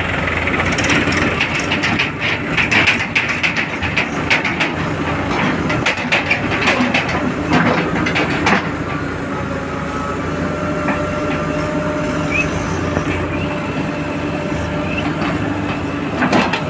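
Engine of heavy machinery running steadily. A dense clatter of knocks and rattles fills about the first half, then eases to a steadier hum with a faint whine.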